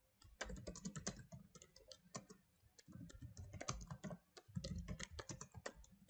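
Computer keyboard typing: a fast, faint run of key clicks with a short pause a little before the middle.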